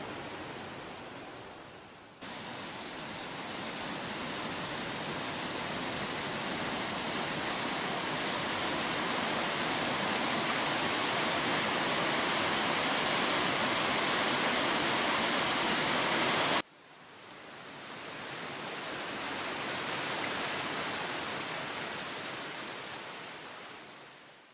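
Rushing water of a river cascading over small waterfalls, a steady hiss. It jumps louder about two seconds in and builds slowly, drops off suddenly about two-thirds of the way through, then swells again and fades near the end.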